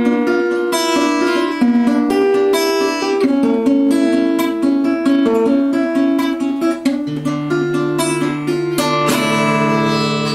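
Guitar fingerpicked in steady broken chords, the song's closing instrumental bars, ending about nine seconds in on a chord left to ring and fade.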